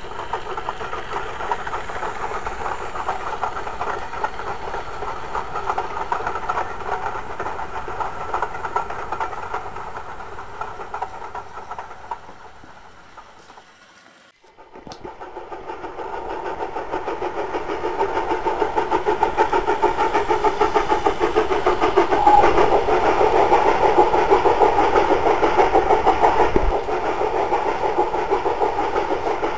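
Model railway locomotive and train rumbling along the track, the running sound fading away over about fourteen seconds to a brief silence. Then a train's running sound rises again and grows steadily louder as it approaches.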